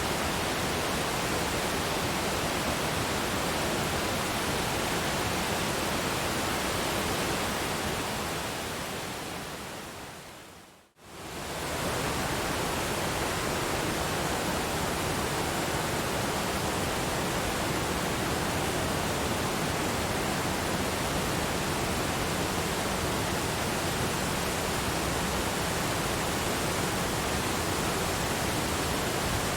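Waterfall rushing in a steady, even hiss, fading out to a moment of silence about eleven seconds in and then quickly fading back up, as at the loop point of a looped recording.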